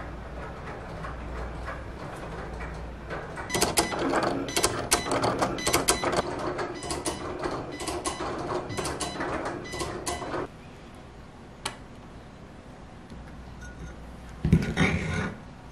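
Cricut cutting machine cutting vinyl on its mat: the carriage and rollers whir with rapid clicks, louder from about three and a half seconds in, then stop abruptly about ten seconds in. A short burst of noise near the end.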